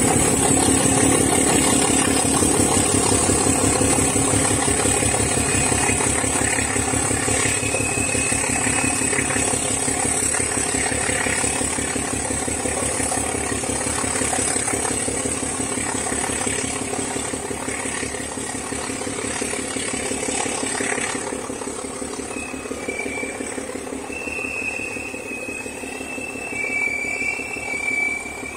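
D20E diesel locomotive's engine running as it hauls a freight train past and away, fading steadily, with the wagons rattling. Short high wheel squeals on the curve come and go, most strongly near the end.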